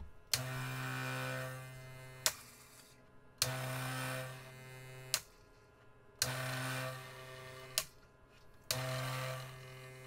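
Gaggia Classic Pro espresso machine backflushing against a blind filter plate. Its vibratory pump buzzes in runs of about two seconds, four times, each run dropping quieter after its first second or so. The first three runs end in a sharp pop as the three-way solenoid valve opens and dumps the pressure.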